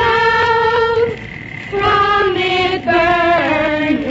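Children and a young woman singing a pilgrim psalm together in one melodic line, holding long notes, with a short break about a second in.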